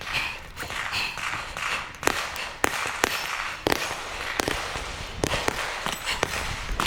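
Gunfire: about eight sharp, irregularly spaced shots over a noisy background.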